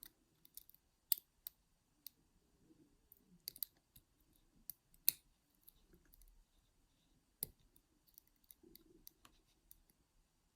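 Faint, scattered clicks and small scrapes of a lock pick working the pins of an ERA 6-pin euro cylinder lock fitted with home-made spool pins. The clicks come irregularly, the sharpest a little past five seconds and about seven and a half seconds in.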